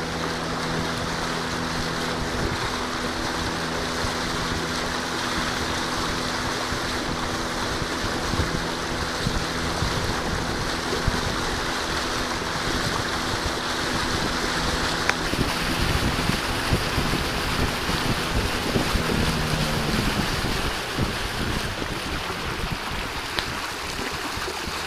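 Boat engine running steadily under the rush of water past the hull and wind on the microphone; the engine note drops and fades near the end, leaving mostly the water and wind.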